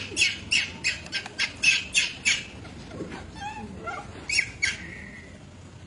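Baby long-tailed macaque screaming in distress: a rapid run of short, shrill cries, about three to four a second, that thins out after about two and a half seconds into a few softer cries and rising squeals.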